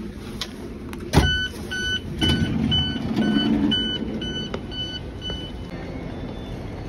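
Train passenger door opening: a sharp thunk about a second in, then a warning beep repeating about twice a second, nine times, while the door mechanism runs.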